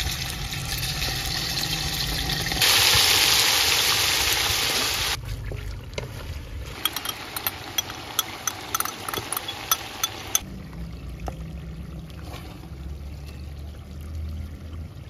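Food cooking in a large aluminium pot over an outdoor burner. A hiss turns loud for about two and a half seconds a few seconds in, then gives way to a run of sharp crackles and pops like hot oil spattering. Near the end only a quieter low hum is left.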